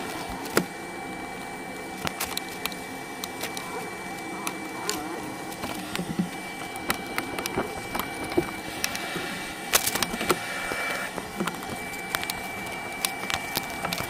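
Scattered clicks, knocks and scrapes of the plastic air filter element and housing being handled and pulled out, over a steady background hum with a faint high whine.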